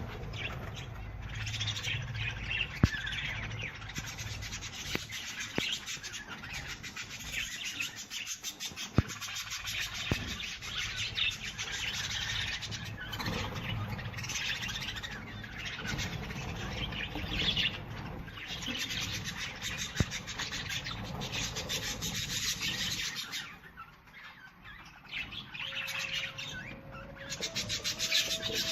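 Birds chirping and twittering continuously in a dense, scratchy chatter, with a short lull about 24 seconds in.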